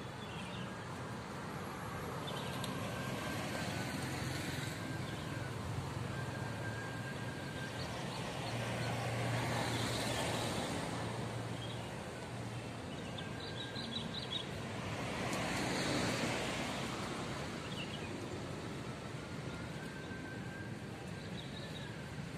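Road traffic passing on the street, a steady wash of car and motorbike noise that swells twice as vehicles go by close, about halfway through and again a few seconds later.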